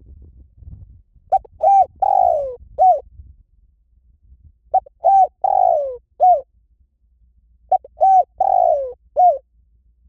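Spotted dove cooing: three identical phrases about three seconds apart, each of four coos, the third coo the longest and falling in pitch.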